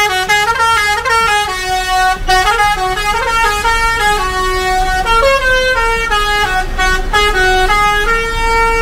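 A coach's multi-tone 'telolet' horn playing a tune: a string of held notes stepping up and down in pitch without a break.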